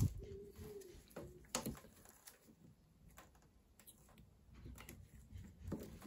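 Faint handling of a metal fuel-pipe quick connector: a few quiet clicks and knocks, the sharpest about a second and a half in, over quiet room tone.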